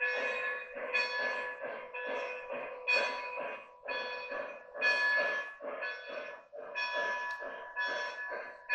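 O gauge model steam locomotive's onboard sound system running: a locomotive bell ringing about twice a second over rhythmic steam chuffing as the engine moves along the track.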